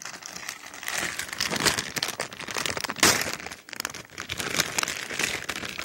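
Thin plastic bags crinkling and rustling as small plastic figures are worked out of them, with many quick crackles.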